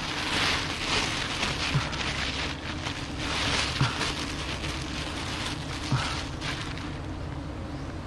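Bursts of rustling and light scraping as a plastic bag and branches are handled while cutting wild honeybee comb, with three soft knocks and a low steady hum of bees underneath.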